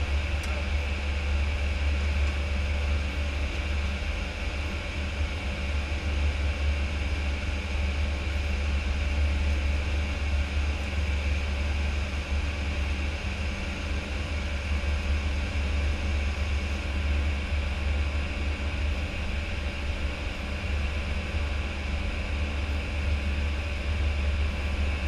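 Steady flight-deck noise of an Airbus A319 in the climb: a constant low rumble under a rushing hiss of air, with no change in pitch or level.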